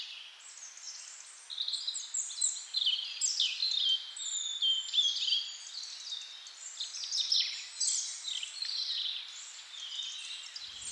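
Small songbirds chirping and twittering over one another, many short high calls overlapping, thickening into a dense chorus about a second and a half in.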